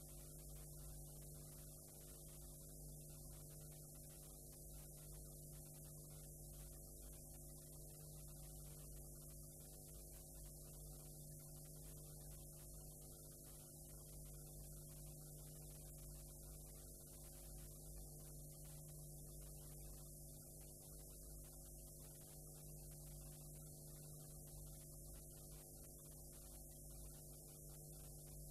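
Near silence: a faint steady hum with a few fixed tones over it and a light hiss, unchanging throughout. This is the background noise of a blank stretch of the recording.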